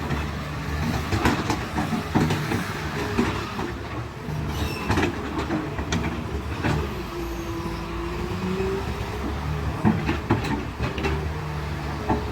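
Excavator working: its diesel engine runs steadily under irregular metallic clanks and knocks from the tracks and bucket, with a brief whine about seven seconds in.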